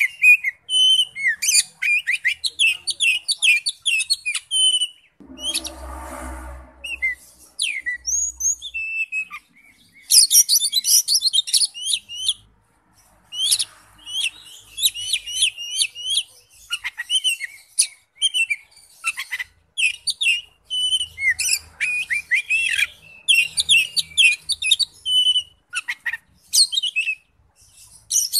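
Oriental magpie-robin singing: a fast, varied stream of clear whistles, sharp chirps and quick trills with brief pauses. A short low rustling noise sounds about five seconds in.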